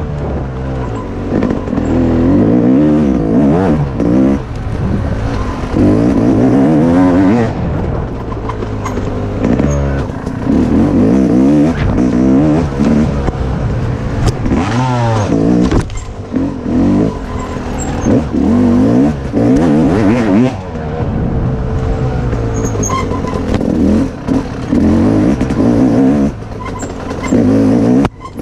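Dirt bike engine revving up and easing off again and again as it is ridden along a trail, its pitch climbing through each burst of throttle and falling away between them. The sound is close up, from the rider's position on the bike.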